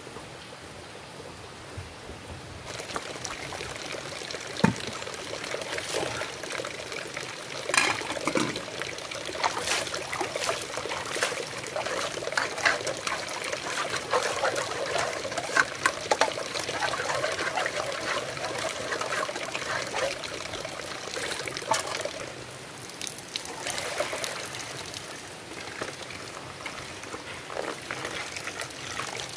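A thin stream of water trickling into a plastic basin, with splashing and sharp clicks and knocks as a metal pot is washed by hand. The water and the clatter start after a couple of quieter seconds.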